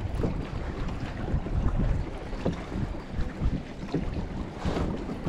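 Wind buffeting the microphone as a low, gusting rumble, with small waves lapping and slapping against a small fishing boat's hull now and then.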